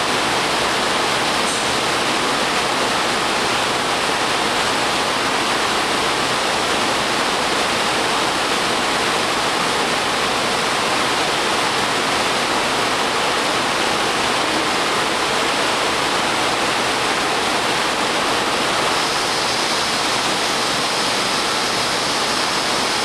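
Steady, even rushing noise at a constant level, like air or machinery running, with a faint high whine joining about nineteen seconds in.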